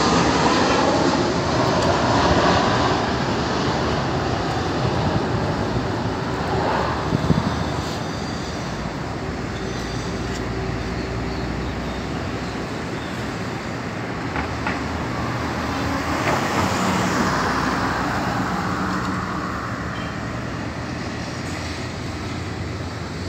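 Jet engine noise of a Boeing 737-800 (CFM56-7B turbofans) on landing approach overhead, loudest at first and slowly fading as the aircraft moves away, mixed with steady city traffic noise.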